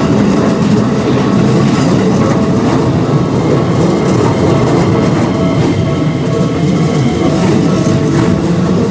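Keikyu Line train running past, a loud, steady rolling rumble of wheels on rail. A thin high whine joins in about three seconds in and fades out about seven seconds in.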